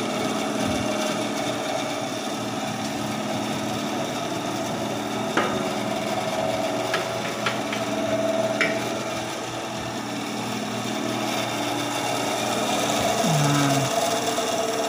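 TORQ BS250 10-inch band saw running with no load: its induction motor hums steadily and the blade and rubber-tyred wheels whir. A few light clicks come in the middle.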